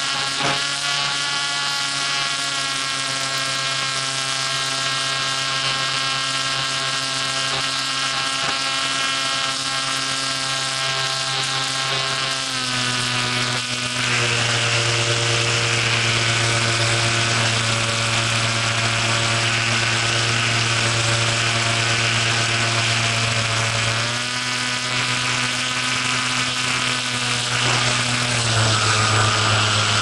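A T-28 model airplane's motor and propeller whining steadily, heard from a camera mounted on the plane. The pitch steps up and down several times as the throttle changes. A rush of wind noise over the microphone sits over it all.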